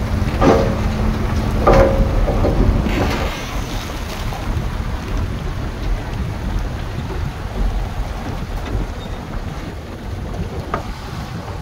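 Low, steady diesel rumble of heavy earthmoving machinery at work, with wind buffeting the microphone. A few short, higher-pitched sounds come in the first three seconds, and the rumble eases a little towards the end.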